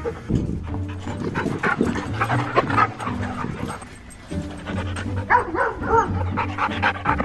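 Dogs playing, with short yips and barks in two clusters, about two seconds in and again around five to six seconds, over background music.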